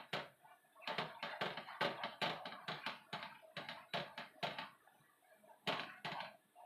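Wooden spatula scraping and knocking against a nonstick frying pan while stirring a thick paneer-and-milk mixture, in quick strokes of about four a second, then a pause and two more strokes near the end.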